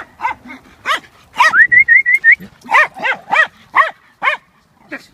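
Small dog's high-pitched barking: a quick string of sharp yaps, with a rising, wavering whine about a second and a half in.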